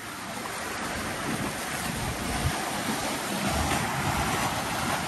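Ocean surf washing and breaking against the jetty's boulders in a steady rush, with wind gusting on the microphone.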